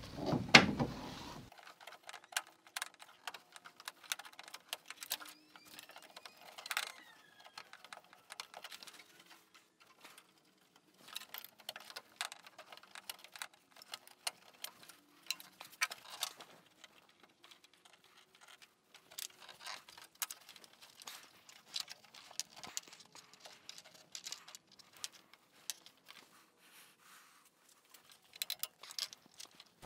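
Faint, irregular small clicks, taps and scrapes of pliers working a hose clamp loose on a radiator hose.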